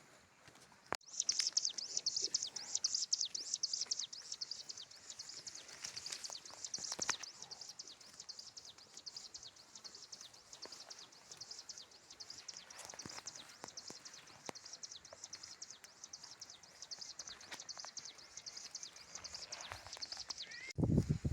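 Insects chirring: a steady, high-pitched, rapidly pulsing drone that starts about a second in and cuts off suddenly just before the end, with a few faint clicks.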